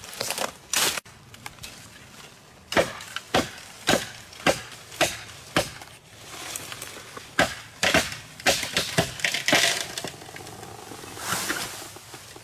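Green bamboo being chopped down by hand: sharp chopping knocks, about two a second, in two runs. Near the end comes a rushing swish of leaves as the cut bamboo falls.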